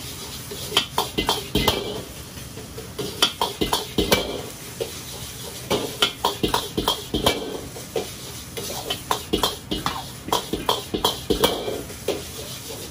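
Metal ladle scraping and clanking against an iron wok as egg fried rice is stir-fried, in quick irregular knocks several times a second.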